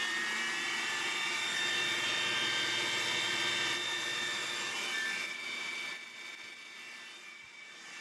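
CNC router spindle running at high speed with a steady high whine. It gets quieter about six seconds in.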